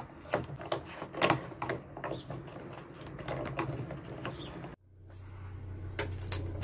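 Plastic clicks, knocks and rattles as a steamer's corrugated hose and its threaded connector are pushed and twisted onto the steamer's outlet. About two thirds of the way in the sound cuts off abruptly, and a steady low hum follows that grows slightly louder.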